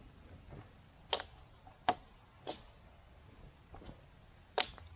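Axe chopping side branches off a fallen dead tree: four sharp chops, three in quick succession from about a second in and one near the end, with a couple of fainter knocks between.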